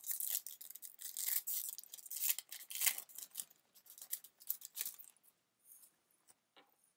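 Foil booster-pack wrapper being torn open and crinkled as the cards are pulled out, a crackly tearing and rustling that thins out to occasional small rustles about five seconds in.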